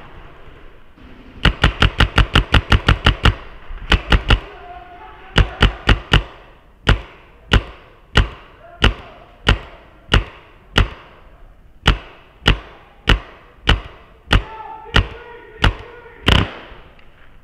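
Paintball marker firing. A rapid string of about ten shots comes first, then short bursts of three and four. After that come single shots at a steady pace of about one and a half a second, and the last shot is the loudest.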